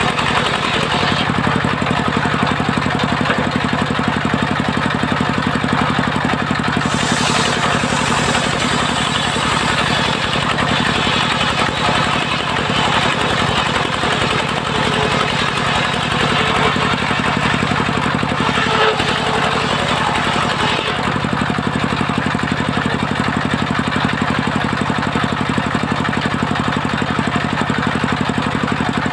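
Large circular sawmill blade ripping a waru (sea hibiscus) log lengthwise, a loud steady cutting noise over the hum of the saw's drive. About three-quarters of the way through the cut finishes and the blade spins free, leaving mostly the steady hum.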